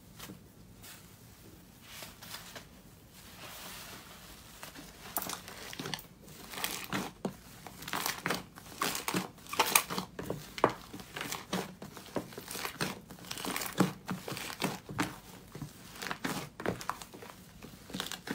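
Slime being squeezed and pressed by hand, giving irregular crackling, crunchy pops that start faint and grow louder and more frequent from about a third of the way in.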